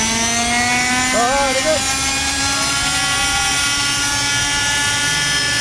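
Raptor RC helicopter running at high power as it lifts off and hovers just above the ground: a steady engine-and-rotor whine whose pitch rises slightly. Brief voices come in about a second in.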